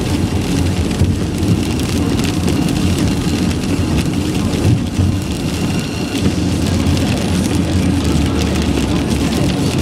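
Rain pattering on a moving car, heard from inside, with many small drop ticks over a steady low road rumble.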